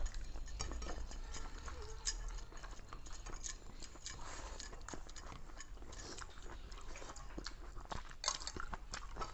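People eating rice and jackfruit curry fast, with wet chewing, lip-smacking and scattered short clicks.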